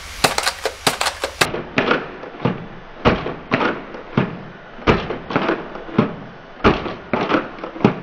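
Nerf Elite Disruptor blaster, a six-dart drum blaster, being primed and fired over and over. It gives a string of sharp plastic clacks, roughly two a second.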